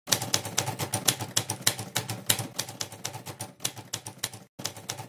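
Typing sound effect: rapid key clicks like a typewriter, several a second, with a brief pause near the end, matched to text being typed onto the screen letter by letter.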